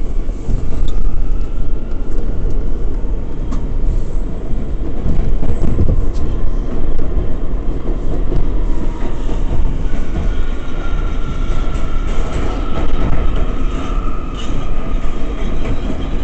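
R179 subway car riding on the rails: a loud, steady rumble of wheels on track with scattered clicks and a faint high whine that grows clearer in the second half.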